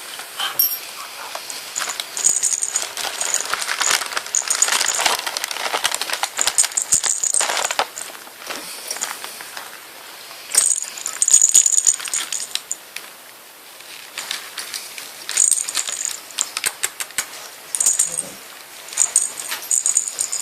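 Kittens playing: repeated short bursts of high-pitched rattling and jingling with many sharp clicks, coming and going in spurts with a brief lull about two-thirds of the way through.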